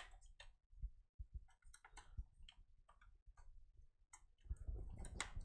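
Faint scattered clicks and handling noises of a front-panel USB cable being worked onto its header on a desktop motherboard, growing a little louder near the end.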